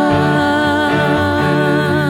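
Country band music with guitar and bass, carrying a long held note that wavers with vibrato and fades near the end.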